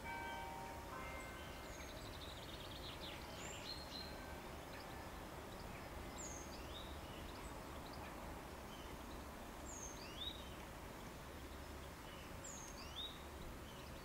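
Small garden birds calling: short, high, sweeping chirps every couple of seconds, a few held whistled notes at the start and a brief rapid trill about three seconds in, over steady low background rumble.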